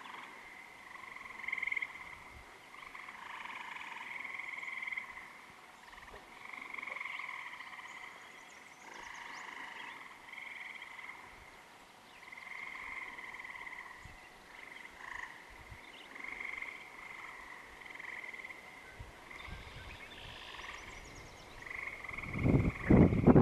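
Frogs calling in a chorus at the water's edge, one drawn-out croaking call after another, each a second or two long, overlapping. Near the end a loud low rumble of wind on the microphone comes in.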